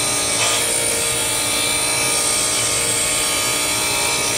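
8-inch DeWalt DW758 bench grinder running, its wheel grinding a square common-steel lathe tool bit held on the tool rest. A steady, high-pitched grinding hiss sits over the motor's even hum.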